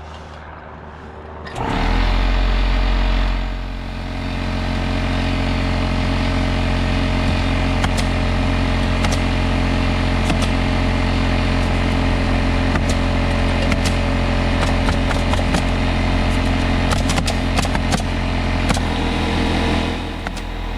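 A motor running steadily, coming in suddenly about a second and a half in, with a low hum and scattered sharp clicks and rattles over it. It dips briefly near the end.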